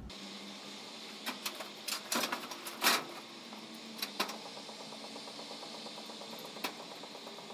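Clicks and knocks of a changing-room locker being worked: a quick run of sharp clacks between about one and three seconds in, the loudest near three seconds, then two more around four seconds and a single click near the end, over a steady low room hum.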